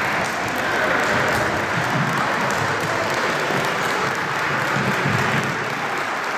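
A group of children applauding: a steady, dense patter of clapping.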